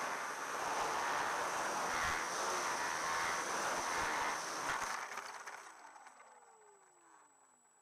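Onboard sound of an MPX Parkmaster 3D electric RC plane: rushing air and motor and propeller noise in low flight, a few knocks as it touches down on grass about five seconds in, then the motor's whine falling in pitch and fading as the propeller winds down.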